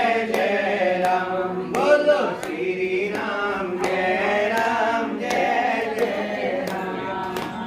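A group of voices chanting a Hindu devotional chant together, with a steady beat of sharp clicks.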